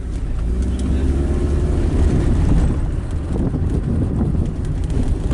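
Engine and road rumble of a 2006 Mitsubishi Lancer heard from inside the cabin as it drives slowly, the engine note rising over the first second or two as the car picks up speed.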